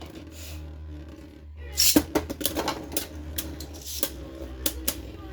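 Two Beyblade Burst spinning tops, Wizard Fafnir and Slash Valkyrie, spinning in a plastic stadium with a steady low hum, and clacking against each other in quick, repeated hits from about two seconds in.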